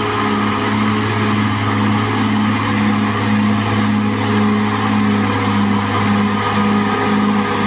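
Caterpillar D6R XL bulldozer's diesel engine running steadily, with a low throb that pulses about twice a second.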